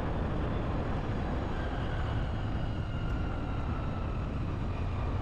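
Steady road and wind noise from a vehicle driving along an uneven road, with a faint whine slowly falling in pitch.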